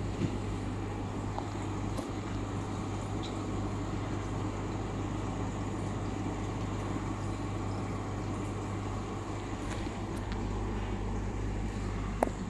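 A steady low hum under a continuous soft noisy hiss, with a few faint clicks.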